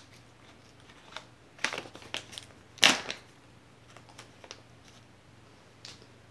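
Packaging being handled and crinkled by hand: a few short sharp rustles, the loudest about three seconds in, then fainter clicks and ticks.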